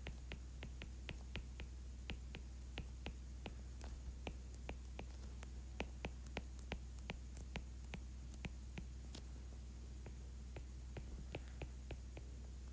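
Stylus tapping on a tablet screen during handwriting: faint, irregular clicks, two or three a second, over a steady low hum.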